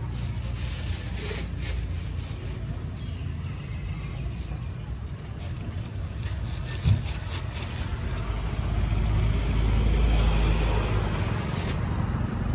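Steady low rumble of motor vehicles running nearby, swelling louder for a few seconds past the middle as one comes close. A single sharp knock sounds about seven seconds in.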